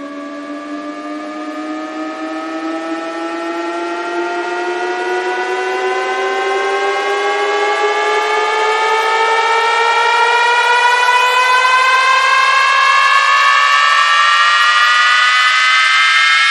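Build-up riser: one buzzy pitched tone with many overtones climbing slowly and smoothly in pitch and getting steadily louder, with no beat under it.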